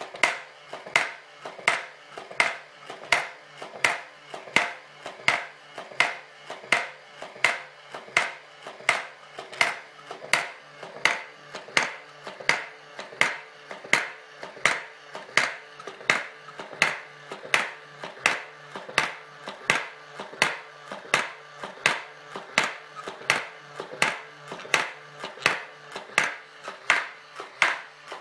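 Homemade coin-ring machine running: its mechanically driven hammer strikes a spinning coin in a steady rhythm of about two sharp metallic taps a second, each with a short ring, over a low steady hum.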